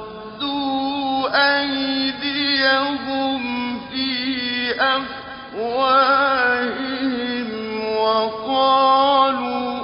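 A man's voice chanting Quranic recitation with tajweed melody. He holds long, ornamented notes with gliding pitch, and there are short pauses between phrases.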